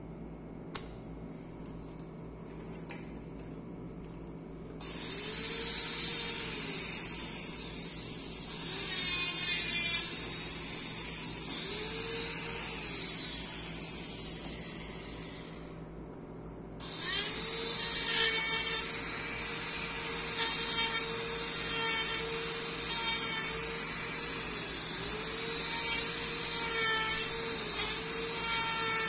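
Dental lab micromotor handpiece with a carbide burr grinding and trimming the acrylic plate of an upper orthodontic retainer. It is a steady high whine that starts about five seconds in, stops for a moment around sixteen seconds, then runs again, its pitch dipping now and then as the burr bites. Before it starts there are only a couple of faint clicks.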